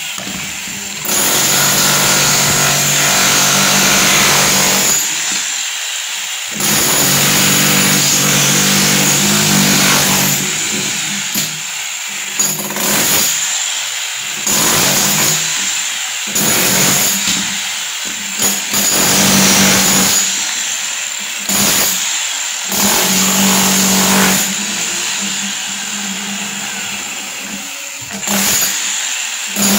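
A handheld power tool is run in repeated bursts of a few seconds, with a steady motor hum under harsh grinding noise and short pauses between bursts.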